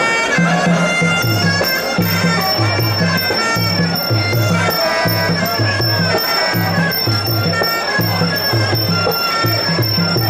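Sarama, the traditional Muay Thai fight music, played live: a reedy Javanese oboe (pi java) melody over a steady, repeating pattern of two-pitched drums, with a regular high tick of small hand cymbals.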